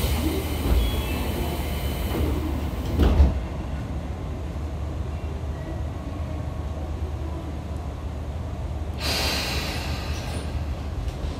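Tobu 9000 series electric train running through a subway tunnel, heard from inside the car: a steady low rumble of wheels on rail, with a thump about three seconds in and a short burst of hissing about nine seconds in.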